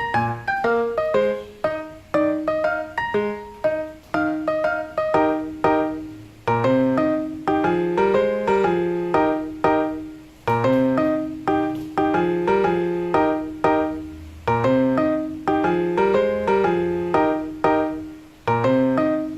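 Background piano music: a steady, rhythmic run of struck notes over a repeating bass line.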